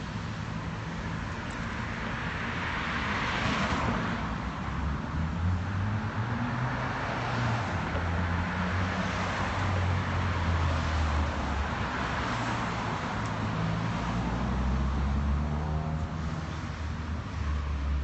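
Street traffic: a string of cars passing one after another on a multi-lane avenue, the tyre noise swelling and fading with each pass over a low engine rumble.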